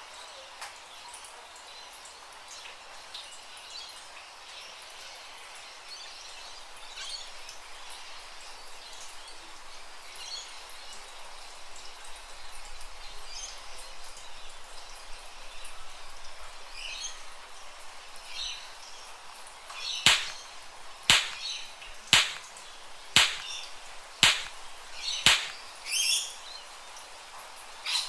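Songbirds chirping and tweeting in scattered short calls over a faint outdoor hiss. From about twenty seconds in, seven sharp, loud cracks come about one a second and are the loudest thing heard.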